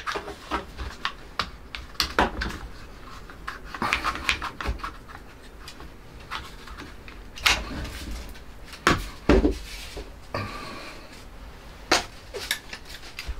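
Painted wooden frame strips knocking together and a one-handed bar clamp clicking as it is squeezed onto the bundle, with several sharper knocks in the second half as the clamped pieces are handled and stood upright.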